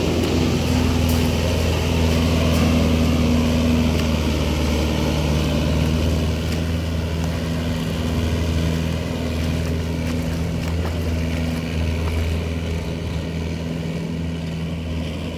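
Diesel farm tractor engine running steadily as it hauls a loaded trailer through shallow river water, with splashing from the wheels. The sound slowly fades as the tractor moves away.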